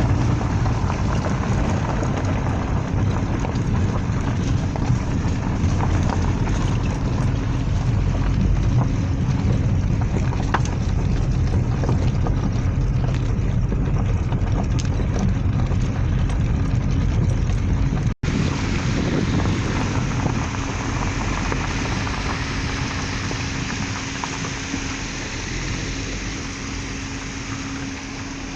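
Car driving, with steady engine and tyre noise from the road. About eighteen seconds in the sound drops out for an instant and comes back smoother, with a steady hum.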